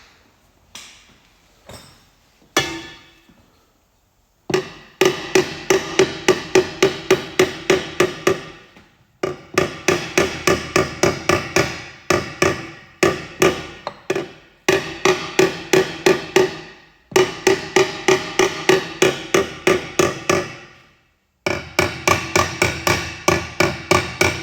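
A hammer tapping rapidly on the thin steel wall of a two-stroke expansion-chamber exhaust pipe, about four light blows a second, each ringing with a metallic tone. It comes in several long runs with short pauses between them, after a few single taps at the start. The blows are working a crease out of the pipe.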